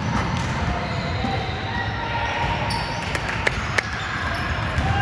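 Basketball game on a gym's hardwood court: a ball bouncing with scattered knocks and thuds, and faint voices calling in the background, all echoing in the large hall.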